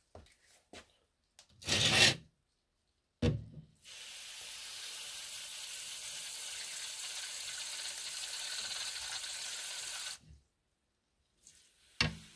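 Water sprayer misting a scorpion enclosure: a steady hiss of spray for about six seconds that cuts off suddenly, after a few rustling handling noises and a sharp knock.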